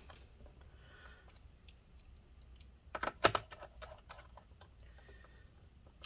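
Small scattered clicks and taps of a screwdriver and screws being worked into a laptop's plastic bottom panel, with a cluster of sharper clicks about three seconds in.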